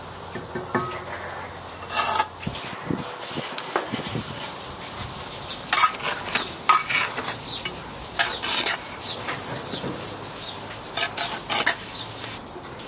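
Bricklayer's trowel scraping and pressing wet mortar into the joint above a course of bricks, with sharp scrapes and taps of the steel against brick in several clusters.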